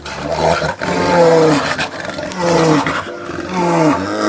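An animal calling over and over, each call falling in pitch and following about a second after the last.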